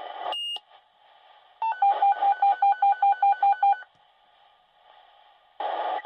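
Fire dispatch radio channel: a short high beep as a transmission drops, then a pulsed alert tone of about ten quick, even beeps, roughly five a second, over radio hiss. Near the end the channel opens again with a rush of hiss.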